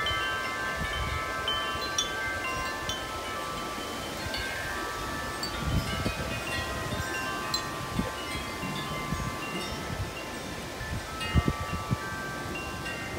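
Large tubular wind chimes ringing steadily in gusty wind, many strikes overlapping into long sustained tones. Wind gusts buffet the microphone throughout.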